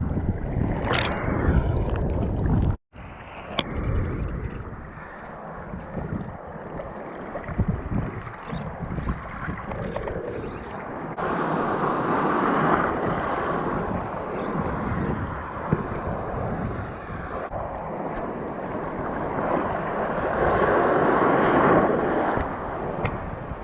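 Surf washing and wind buffeting the microphone: a steady rush that swells louder twice, about halfway through and near the end. The sound cuts out for an instant about three seconds in.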